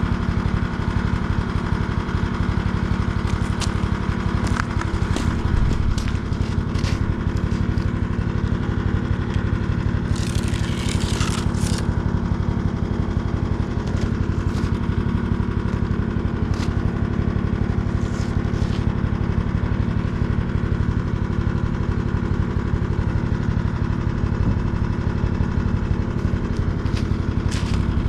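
An engine running steadily, with a brief hiss about ten seconds in.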